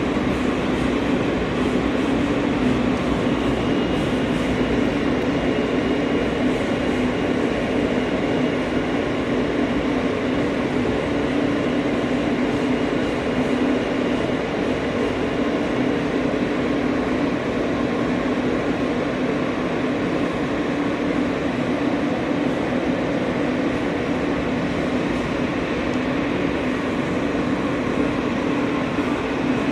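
New York City subway car in motion, heard from inside the car: a steady rumble of the train running, with a constant low hum and a faint high whine over the first half.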